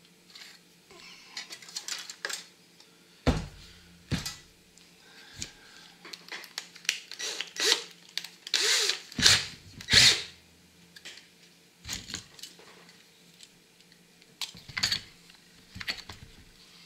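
Tool-handling sounds: steel drill bits clicking in a plastic index case and a Metabo cordless drill being handled and fitted with a bit, with irregular clicks and knocks. A few louder bursts come about eight to ten seconds in, as the bit goes into the chuck.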